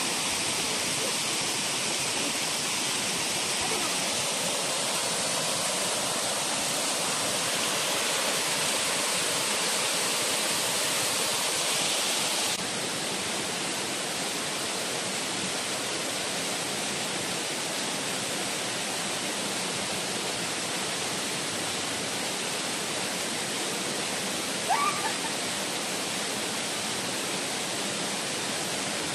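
Steady rushing of several small waterfalls pouring into a rock pool. The level drops slightly about twelve seconds in. A brief high sound cuts in near the end.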